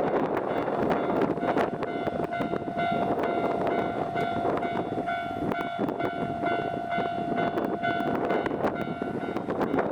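Japanese railway level crossing's electronic warning bell ringing in a steady clang about twice a second, starting about two seconds in, over a steady rushing noise.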